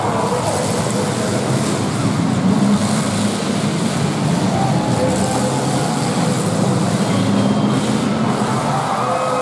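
Several demolition derby car engines running and revving together, their pitch rising and falling as the cars drive and ram each other, with an occasional bang of cars hitting.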